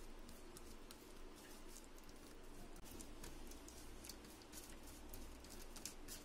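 Fingers mixing a wet yogurt-and-spice marinade in a stainless steel plate: faint, irregular squishing with quick light ticks against the steel.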